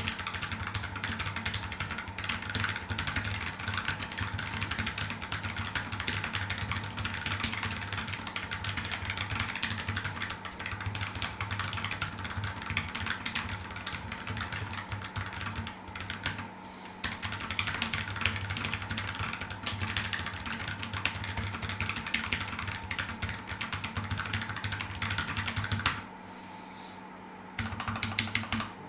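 Continuous fast typing on a Keychron K3 low-profile mechanical keyboard with its stock ABS keycaps and lubed switches: a rapid stream of higher-pitched keystroke clacks, broken by a short pause near the end.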